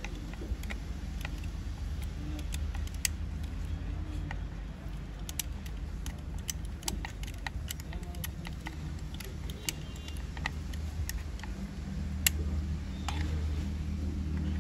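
Scattered small metallic clicks and taps from a hand driver working the screws out of a car's plastic pedal assembly, over a steady low hum.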